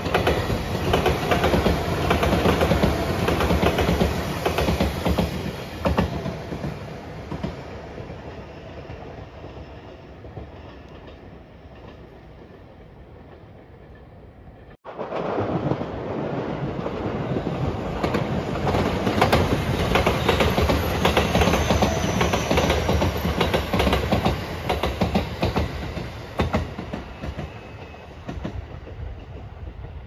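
Two electric trains passing one after the other on a double-track line, each running loud and then fading away, with wheels clacking over the rails. First comes a JR Shikoku 8000 series limited express. Then, after an abrupt cut about halfway through, comes a Rapid Marine Liner commuter train.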